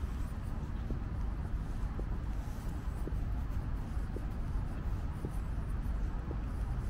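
Footsteps of a person walking at about one step a second, each a short light tick, over a steady low rumble.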